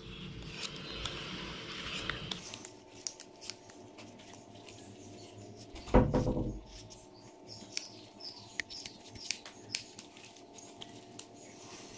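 Scissors snipping and clicking as they cut through a thin rubber bladder around its valve: a scatter of small, sharp clicks, with one louder sound about six seconds in.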